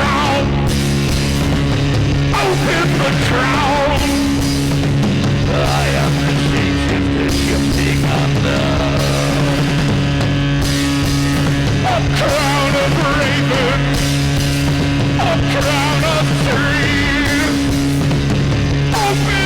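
A trance-punk band playing live: a loud, driving song over a steady low drone, with a wavering high melody line that comes and goes.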